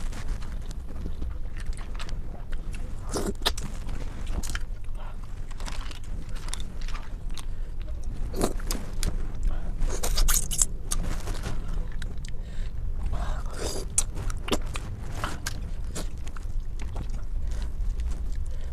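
A person eating close to the microphone, mukbang style: chewing, with scattered sharp clicks and scrapes and a louder noisy burst about ten seconds in.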